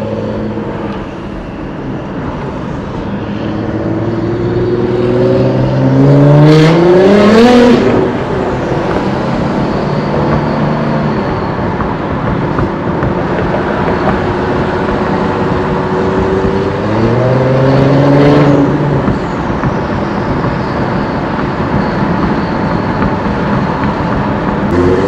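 Nissan GT-R R35's twin-turbo V6 with a full bolt-on exhaust, accelerating twice: the engine note climbs steeply to its loudest about six to eight seconds in, with a couple of sharp cracks at the top, settles to a steady drone, then climbs again about seventeen seconds in.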